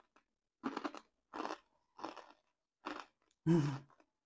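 A mouthful of thick crinkle-cut kettle potato chips being chewed, with a crisp crunch about every two-thirds of a second. The loudest crunch comes near the end.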